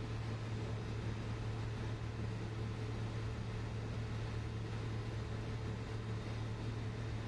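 Steady low hum with an even hiss over it from running ship's machinery, unchanging throughout.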